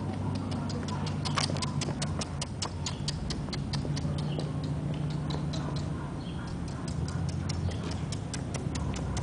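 Quick, light clicking of a small dog's nails on asphalt as it trots on a leash, about six ticks a second.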